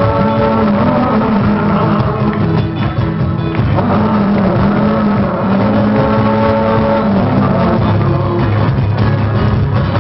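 Small acoustic band playing live: acoustic guitars with hand percussion, loud and steady throughout.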